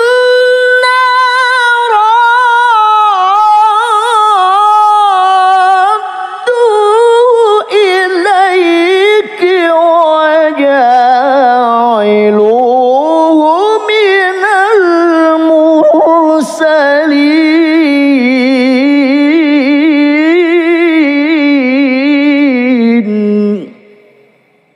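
A male qari chanting Quran recitation (tilawah) in a long, ornamented melody, the voice wavering and gliding through held notes with only brief breaks for breath. It stops about 23 seconds in.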